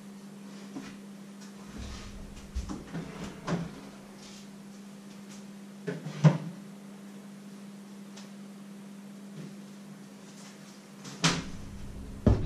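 Refrigerator door opened and closed, with knocks and clatters of things being taken out and handled: a few light knocks early, the loudest about halfway through, and another pair near the end, over a steady low hum.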